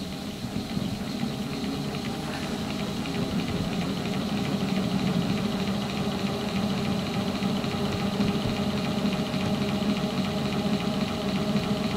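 Early-1890s Edison General Electric bipolar dynamo running slowly as a DC motor on a PWM speed controller: a steady mechanical hum with a thin high tone, growing a little louder over the first few seconds as its speed is adjusted.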